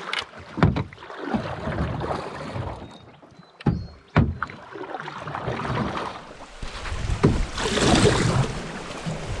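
Canoe paddling: paddles swishing and splashing through river water in uneven strokes, with a few sharp knocks scattered through.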